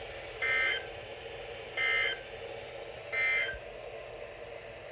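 Emergency Alert System end-of-message signal: three short, buzzy bursts of two-tone digital data about a second apart. They mark the end of the broadcast warning.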